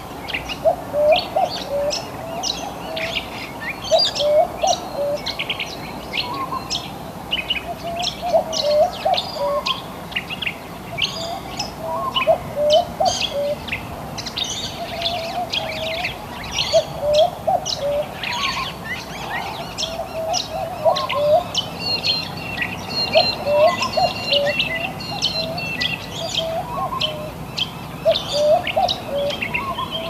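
Dawn chorus of native Australian birds, many chirping and calling at once with quick high notes. Underneath, one lower call of a few hooked notes repeats every two seconds or so.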